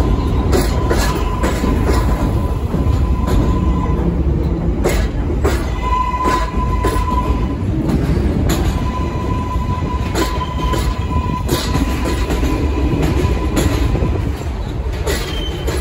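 R143 subway train rolling slowly past on elevated track, its wheels clacking at irregular intervals over rail joints, with a steady high whine over a low rumble.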